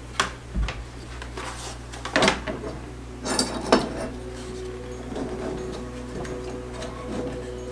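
Soundbar being handled and fitted onto its wall bracket: hard plastic-and-metal knocks and clatters, the sharpest about a quarter second in, around two seconds and near four seconds. Faint music comes in during the second half.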